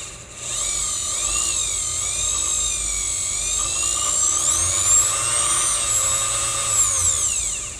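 Sewing-machine motor running with a noisy high whine as it drives a watchmaker's lathe countershaft through a leather belt. Its pitch wavers and then climbs to its highest about five seconds in, as the speed is varied by its foot pedal. It winds down and stops at the end.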